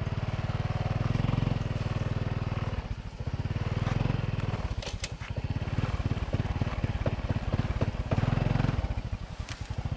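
Small motorbike engine running with a fast low pulsing, its loudness swelling and dipping as the throttle changes.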